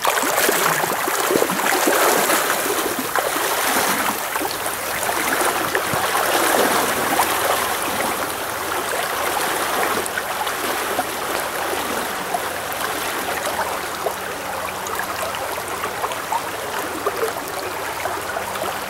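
Shallow stream running steadily around a wading angler, a constant rush of water.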